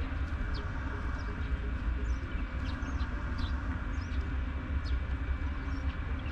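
Harbour ambience: a steady low rumble with a faint steady whine, and short, faint bird chirps about once a second.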